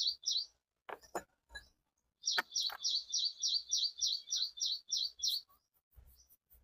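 A small bird chirping in quick repeated series, about four chirps a second, in two runs with a pause of about two seconds between them. A few sharp clicks or knocks fall in and just after the pause.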